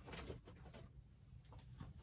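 Near silence: room tone with a low steady hum and a few faint soft clicks.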